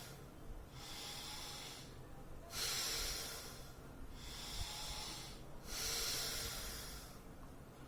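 A person doing a yogic breathing exercise (pranayama), with audible, forceful breaths in and out in a steady rhythm. Each breath lasts about a second, and louder and softer breaths alternate, making roughly three breath cycles.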